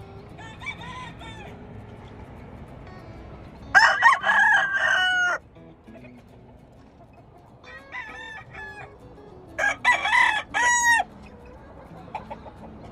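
Gamefowl roosters crowing: two loud close crows about 4 and 10 seconds in, with fainter crows from more distant roosters answering about a second in and just before the second loud one.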